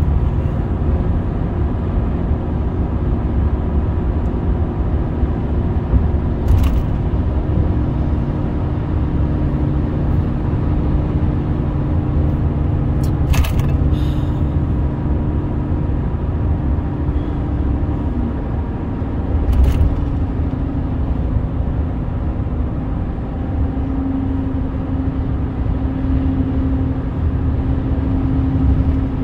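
Road noise inside a car's cabin at highway speed: a steady low rumble of tyres and engine with a droning hum, which grows stronger in the last few seconds. Three brief sharp clicks sound several seconds apart.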